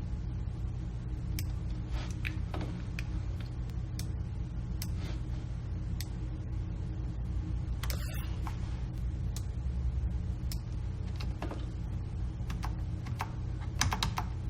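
Irregular clicking of a computer mouse and keyboard, a click every second or so with a few quick clusters, over a steady low hum.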